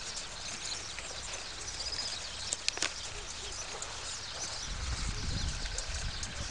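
Quiet outdoor ambience: a steady hiss with faint bird chirps. A soft low rumble, like wind on the microphone, builds in the last part.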